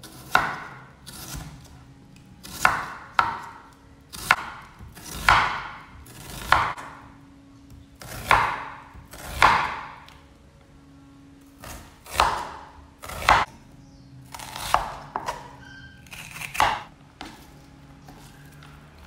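Chef's knife slicing an onion on a wooden cutting board: about fifteen separate strokes, roughly one a second, each a crisp cut through the layers ending in a knock of the blade on the board. The slicing stops a couple of seconds before the end.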